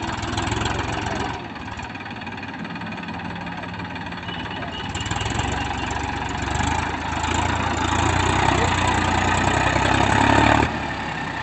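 Massey Ferguson 241 DI tractor's diesel engine working hard as the tractor strains, stuck in deep mud. It grows louder from about halfway, peaks near the end, then eases off suddenly.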